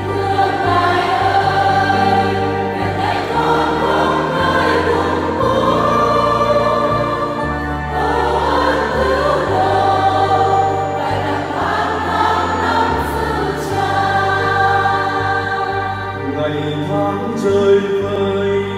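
A church choir singing a Vietnamese Catholic hymn in sustained, full voice, over held bass notes that change every second or two.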